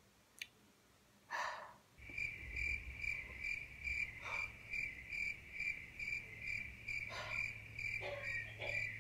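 Crickets chirping in an even pulse, about two chirps a second. The chirping cuts in suddenly about two seconds in, together with a low hum, as a dubbed-in 'crickets' sound effect. Just before it comes a short breath.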